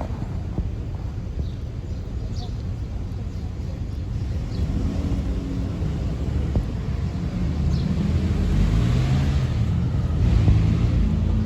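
Low engine rumble of a motor vehicle, growing louder from about halfway through, with a few faint, very short high squeaks.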